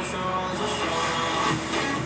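Background music with instruments playing steadily.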